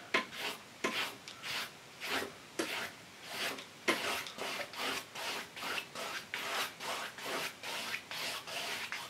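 A paintbrush loaded with oil paint scrubbing back and forth on a stretched canvas, working dulled green into the foreground. It rasps in regular short strokes, about two a second.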